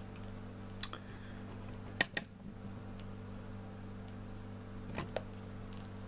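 Sharp clicks of pushbutton switches being pressed: one about a second in, a close pair at two seconds and another pair at five seconds, over a steady low hum. The buttons are on the Bird 4381 wattmeter's keypad and the radio's push-to-talk.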